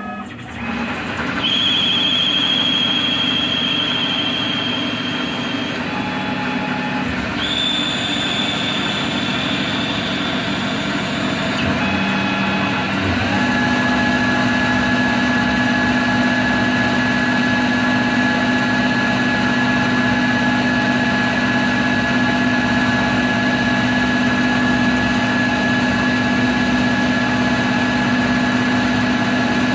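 Tormach 15L Slant Pro CNC lathe running its program and turning a bar, with a steady mechanical running sound. High whines switch on and off twice in the first twelve seconds, then a steady lower whine settles in from about thirteen seconds on.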